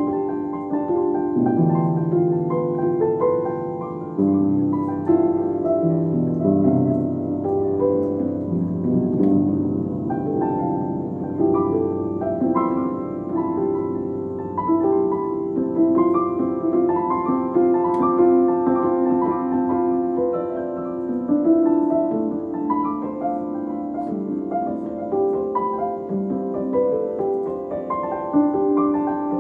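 Background instrumental music led by piano, a continuous run of melodic notes.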